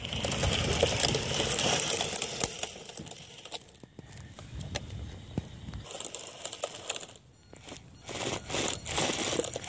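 A homemade RC rock crawler towing a plastic sled loaded with two children over asphalt. The sled and the crawler's tyres make a rough scraping, crackling noise on the road, loudest in the first few seconds.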